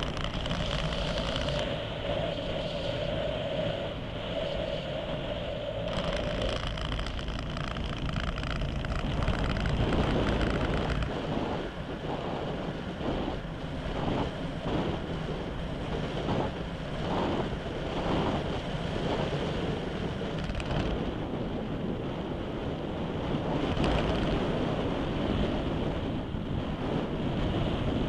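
Wind rushing over the onboard camera microphone of a radio-controlled model aircraft in flight, surging and easing as it flies. A steady whine sits over the rush for the first six seconds or so, then stops.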